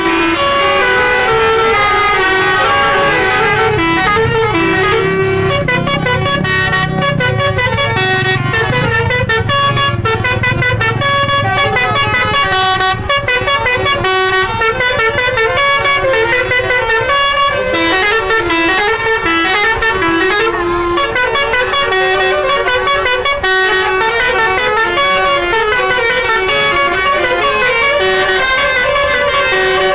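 Tour buses' 'basuri' telolet horns blaring melodic tunes, the tones stepping from note to note without a break. A low engine rumble swells a few seconds in and fades before the middle.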